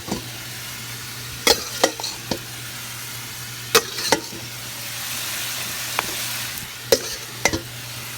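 Chopped chicken and gizzards sizzling in hot oil in a pan, a steady hiss, with a utensil knocking sharply against the pan several times as the meat is stirred.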